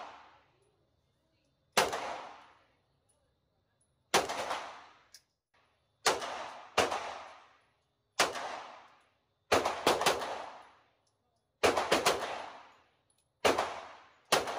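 Polymer 80 Glock 19-pattern 9mm pistol fired about a dozen times at an uneven pace. The shots come singly and in quick doubles and a triple, each sharp report followed by a short echo off the indoor range.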